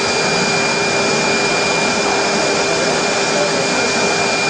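CNC profile milling machine running with its high-speed spindle spinning steadily: a constant high whine and a lower hum over loud, even machine noise.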